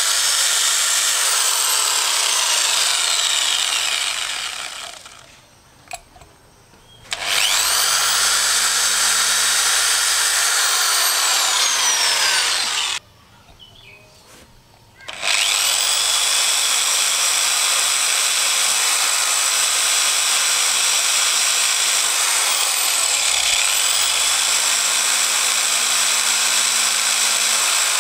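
Electric hand drill with a 3 mm bit boring into a sheared motorcycle brake-disc bolt, to drill it out. It runs in three long spells: it winds down about five seconds in, stops abruptly again about thirteen seconds in, and its pitch rises each time it starts up again.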